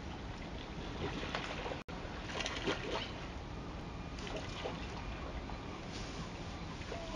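Steady rush of river water with several short splashes, from a brown bear fishing in the river. The sound cuts out for an instant a little before two seconds in.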